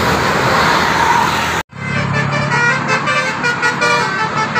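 Road noise from a passing bus, then, after an abrupt cut, a bus's basuri musical air horn playing a telolet tune: a run of held notes that step from one pitch to another over the low sound of the engine.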